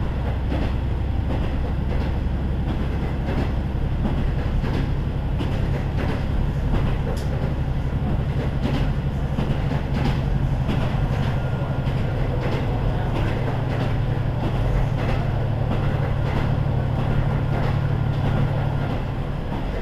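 Diesel engine of a KiHa 40 series railcar (KiHa 40-587) pulling steadily with the train under way, heard on board: a steady low drone, with repeated clicks of the wheels over rail joints. The engine note eases near the end.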